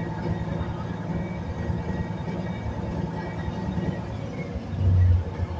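Batara Kresna railbus running, heard from inside the cabin: a steady low drone of its diesel engine with wheel and track rumble, swelling briefly louder near the end.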